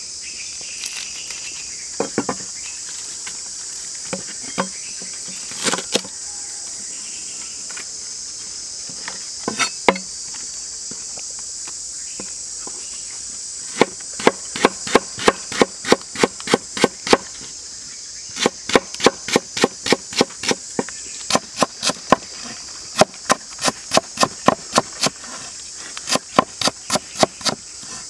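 Large kitchen knife chopping spring onions on a wooden board, in quick runs of about four strokes a second from about halfway in, with a few scattered knocks before. Insects drone steadily and high-pitched throughout.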